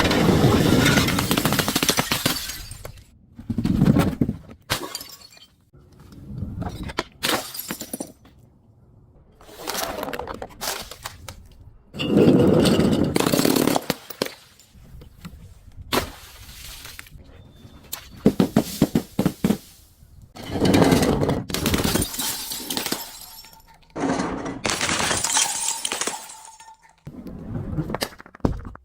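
Glass bottles breaking and shattering again and again: about a dozen separate crashes and crunches, some trailing off over a second or two.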